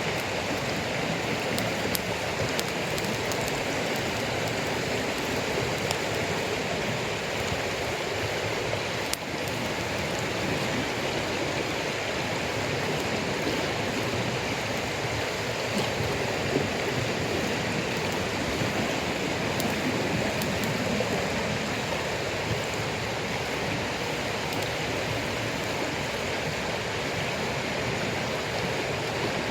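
Steady hiss of light rain and a smouldering campfire of damp firewood, with a few faint pops from the fire now and then.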